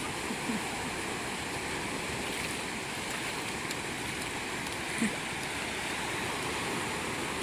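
Steady wash of sea surf breaking on a beach.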